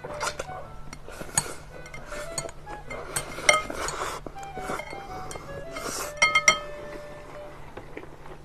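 Close-up eating: slurping the last noodles, with chopsticks clinking and scraping against a glass bowl, the glass ringing briefly after the sharper taps.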